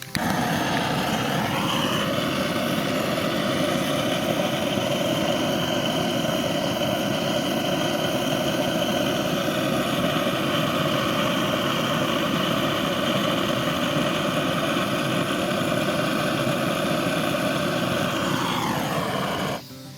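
A motor starts up and rises in pitch over about two seconds, runs steadily at one speed, then winds down and stops about a second before the end.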